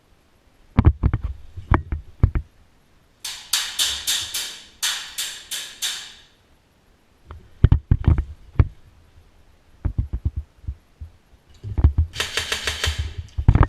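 Airsoft guns firing in rapid bursts: two runs of quick, evenly spaced shots a few seconds in and another burst near the end, with low thumps of movement between them.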